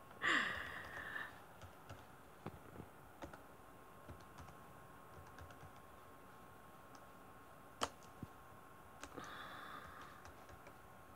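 Typing on a computer keyboard: scattered light key clicks, with a sharper click near eight seconds in. A short breath-like rush of noise opens it, and a faint steady high tone runs underneath.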